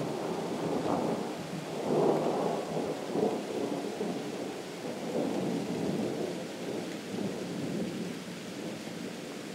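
Distant thunder rumbling, rolling in several swells over the first few seconds, loudest around two to three seconds in, then slowly dying away.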